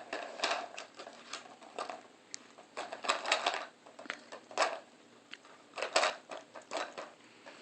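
A dog working a treat puzzle toy: irregular clattering and knocking as the puzzle's pieces are pushed and flipped over.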